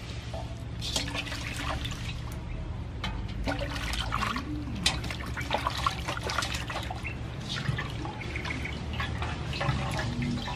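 Water splashing, trickling and dripping in irregular bursts as a raw chicken is rinsed and cleaned by hand.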